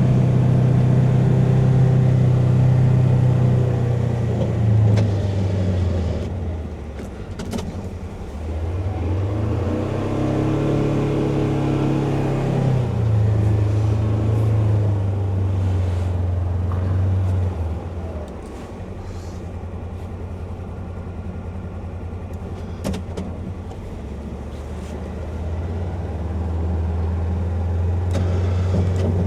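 Polaris Ranger XP 1000 Northstar's twin-cylinder engine running under load while plowing heavy wet snow, heard from inside the enclosed cab. Engine speed falls and rises several times as the machine pushes snow, slows and moves off again, with a few light clicks and knocks.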